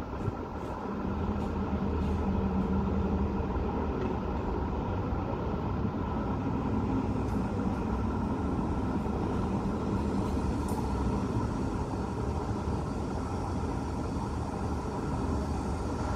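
Steady hum of city road traffic from the streets below, with a heavier vehicle's engine standing out for a few seconds near the start.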